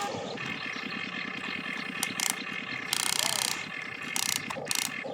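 Geared electric motors of RC construction toys whirring with a fast, even clicking rhythm. Several short hissing bursts come through, the longest about three seconds in.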